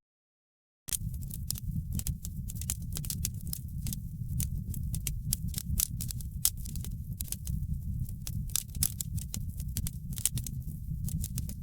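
Wood fire in a fireplace crackling: a steady low rumble of the flames with dense, irregular sharp pops and snaps. The sound cuts out completely for about a second at the start.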